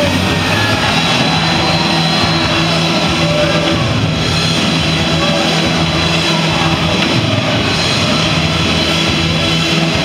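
Loud rock music playing steadily, with long held notes.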